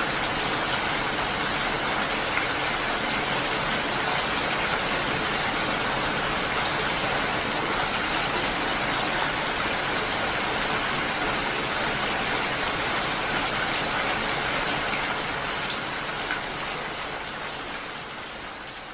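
Steady heavy rain falling, an even hiss, fading out gradually over the last few seconds.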